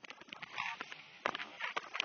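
Close handling noise: a paper tissue veil rustling and a small plastic toy figure tapping and clicking on a wooden table, in short irregular bursts.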